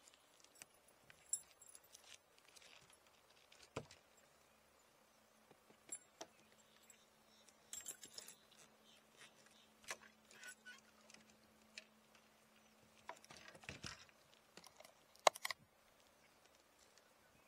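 Faint, irregular small clicks and light rattles, loudest about fifteen seconds in, over a faint steady low hum through the middle.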